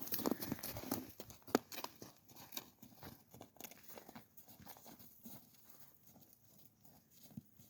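Irregular crunching steps in snow, loudest at first and growing steadily fainter.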